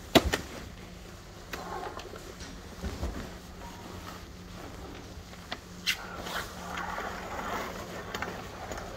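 Shop background with a steady low hum. There is one sharp knock just after the start, then scattered clicks and rustles of handling.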